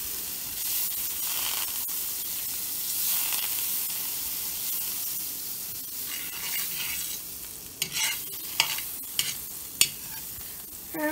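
Butter melting and sizzling in a hot cast iron skillet, stirred and spread around the pan with a wooden spatula. A few sharp clicks come in the last few seconds.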